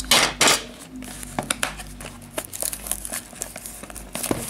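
Plastic shrink-wrap crinkling and tearing as it is stripped off a cardboard trading-card hobby box, in a run of irregular crackles that are loudest at the start.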